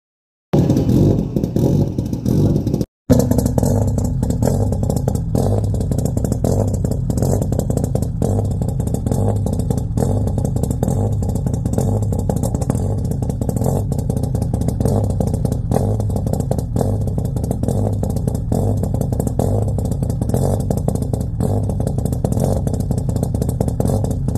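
Subaru Legacy GT's turbocharged flat-four idling at the tailpipe with a deliberately lumpy, loping 'rotational idle' switched on by a remap of the stock ECU. The idle pulses unevenly, with irregular sharp pops from the exhaust.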